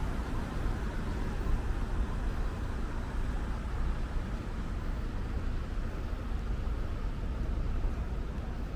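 Steady hum of road traffic, an even wash of car noise with no single vehicle standing out.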